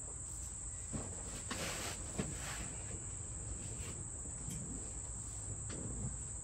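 Steady high-pitched trill of insects, with a few footsteps, knocks and rustles in the first few seconds as a person gets into a car's seat.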